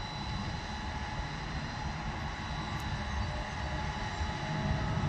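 Farm machinery engine running in a field: a steady drone with a faint whine over it, growing slowly louder near the end.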